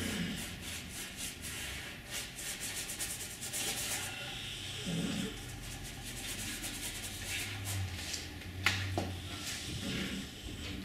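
Paintbrush bristles scrubbing and blending paint on a stretched canvas: a quick run of short rubbing strokes for the first few seconds, then softer, sparser strokes. A single sharp click sounds about three-quarters of the way through.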